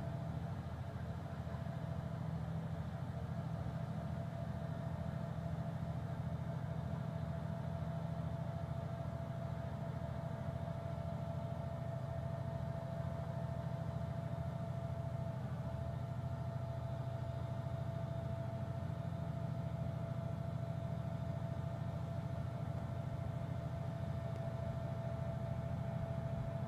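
Fendt 1050 Vario tractor's six-cylinder diesel running steadily under load while it powers a rear-mounted FAE root mulcher grinding tree stumps at a crawl, a low engine drone with a thin steady whine above it.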